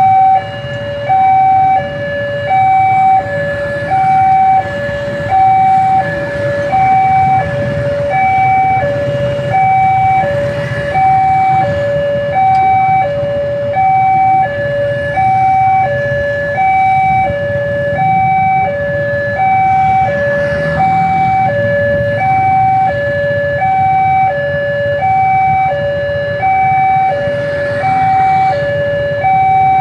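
Electronic level-crossing warning alarm sounding a steady high-low two-tone pattern, about one cycle every second and a half, over the low rumble of idling motorbikes. The barriers are down: the alarm signals an approaching train.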